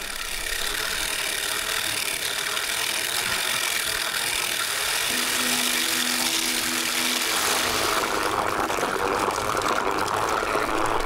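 Vehicle engine running steadily under a continuous hiss.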